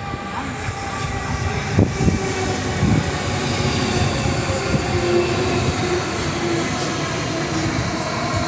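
Renfe Cercanías commuter electric multiple unit running in alongside the platform, with a steady rumble and whine from its wheels and motors. A couple of knocks from the wheels over rail joints come about two and three seconds in.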